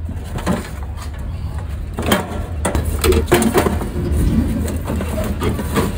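Steady low rumble of road traffic, with faint voices in the background and a few light knocks.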